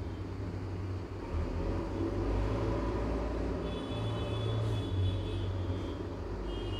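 A low rumble that swells about a second and a half in and then holds steady, with faint high steady tones over it in the second half.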